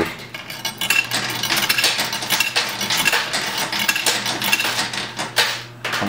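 Coins clinking and clattering in a coin pusher arcade machine: many small, quick metallic clicks as coins drop onto the playfield and jostle against one another, over a steady low hum.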